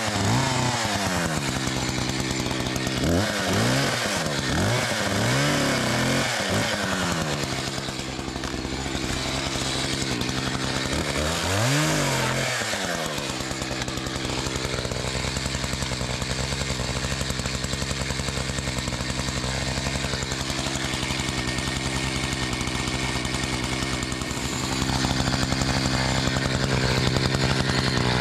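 Two-stroke gas chainsaw revved up and down several times, then running steadily at speed, growing louder near the end.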